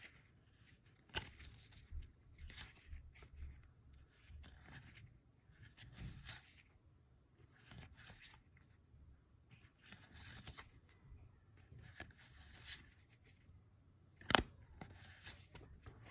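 Magic: The Gathering trading cards being slid and flipped through in the hand: faint, irregular scrapes and rubs of card against card, with one sharper click about fourteen seconds in.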